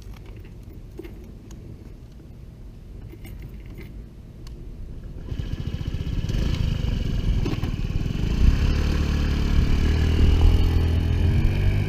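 Honda Ruckus scooter's 49cc four-stroke single-cylinder engine idling with a low, rapid putter, then opening up about five seconds in as the scooter pulls away, running louder from then on.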